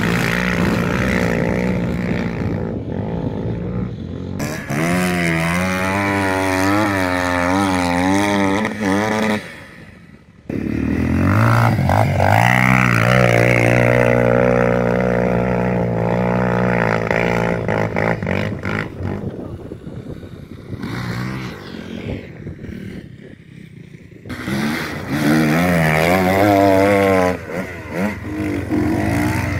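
Off-road motorcycle and quad engines running and revving, the pitch rising and falling constantly as the throttle is worked over rough ground. The sound drops away briefly about ten seconds in and is quieter again for a few seconds past twenty seconds.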